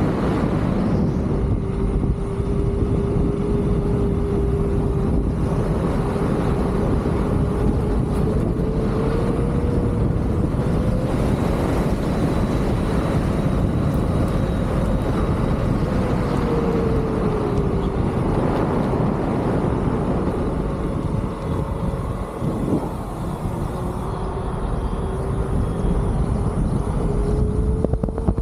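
Leaperkim Lynx electric unicycle's hub motor whining, its pitch rising and falling with speed. It dips sharply about three-quarters of the way through, then climbs again. Under it is a steady rumble of wind on the microphone.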